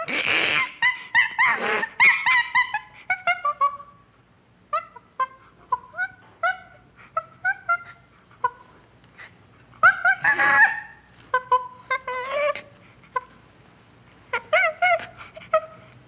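Common chimpanzee vocalising: a run of short, high calls that rise and fall in pitch, broken by harsh screams at the start, about ten seconds in and again near the end.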